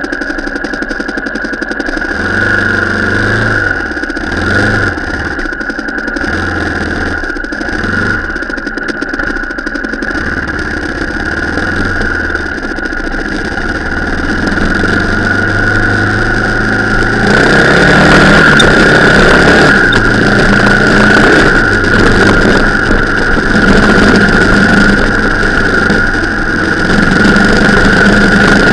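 Vehicle engine running while driving off-road, its revs rising and falling several times in the first ten seconds. It grows louder from about two-thirds of the way in, with a steady high whine throughout.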